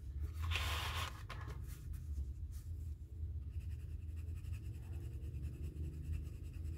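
Colored pencil scratching on paper as a swatch square is shaded in, with rapid, even back-and-forth strokes from about three and a half seconds in. A short soft hiss comes about half a second in.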